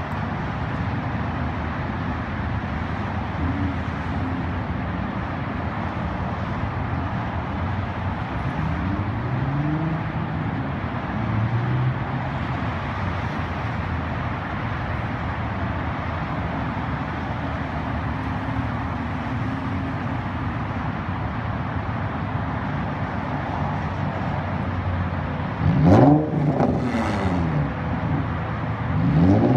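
2005 Nissan 350Z's 3.5-litre V6, through a straight-piped, muffler-deleted exhaust, running steadily with some gentle rises and falls in pitch. Near the end it is revved sharply twice, the pitch shooting up and dropping back each time.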